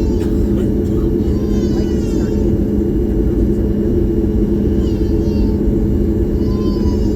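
Steady cabin rumble of a Boeing 737 MAX 8 on the ground, its CFM LEAP-1B engines running at low power, with a steady hum. Short, high, wavering cries sound over it a few times.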